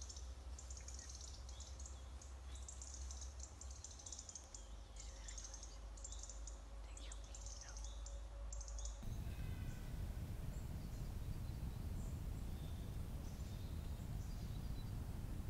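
Woodland birds singing, many short high chirps repeating over a faint low rumble. About nine seconds in this cuts off abruptly and gives way to a steady rushing noise with a few faint bird calls.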